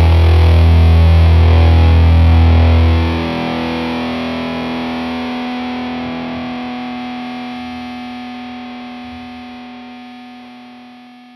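Music: a distorted electric guitar chord struck and left ringing, its heavy low notes cutting out about three seconds in and the rest slowly dying away.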